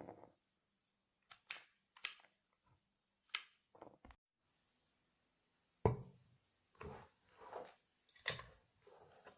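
Scattered short clicks, taps and rustles of small objects being handled, with a couple of seconds of dead silence in the middle.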